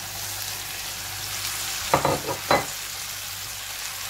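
Julienned potato and grated carrot sizzling in hot oil in a frying pan, a steady hiss. About two seconds in come a few short knocks.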